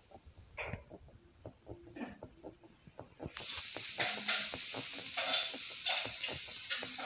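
Handling noise on a phone's microphone as the phone is moved and gripped: faint clicks at first, then from about three seconds in a louder rustling hiss with sharp scrapes.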